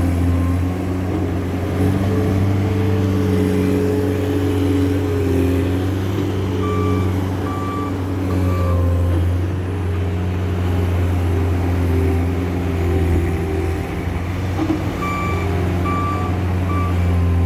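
Case skid steer loader's diesel engine running under steady working load while levelling ground, with its backup alarm beeping in two short runs as the machine reverses.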